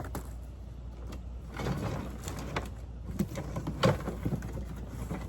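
Rustling and a few sharp knocks as parts and packaging are handled and lifted out of a box, with the loudest knock a little under four seconds in, over a low steady hum.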